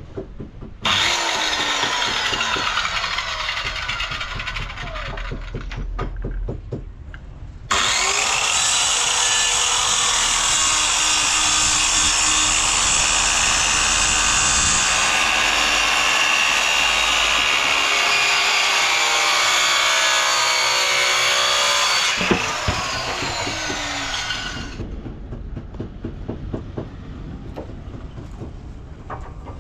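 Power saw cutting timber: a shorter cut in the first few seconds, then a longer, louder cut lasting about a quarter of a minute, with a falling whine as it ends.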